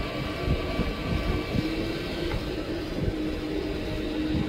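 Hot-air rework station blowing steadily, a low rush of air with a faint steady hum, while it reflows the solder under a new USB-C charging port on a phone's charging board.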